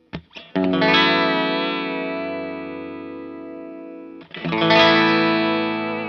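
Fender Stratocaster electric guitar played through a Native Audio Pretty Bird Woman chorus-vibrato pedal into a Vox AC30 amp. A couple of quick strums are followed by a chord that rings with a slight wavering and slowly fades, then a second chord is struck about four seconds in.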